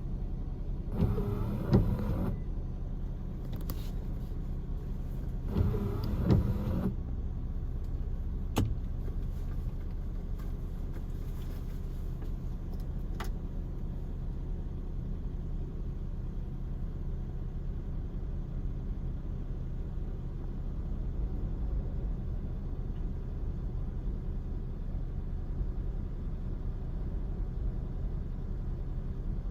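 Steady low rumble of surf breaking on a beach under a typhoon swell, with two brief louder bursts in the first seven seconds.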